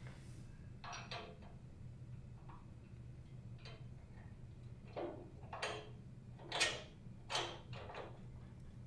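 Large steel bolts being worked by hand through the steel mounting brackets of a Johnny Bucket Jr loader bucket: about ten short, scattered metal clicks and scrapes, the loudest about two-thirds of the way through.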